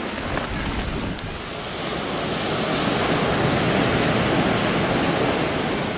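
Jet airliner engines on landing: a rushing roar that swells about two seconds in and begins to ease near the end.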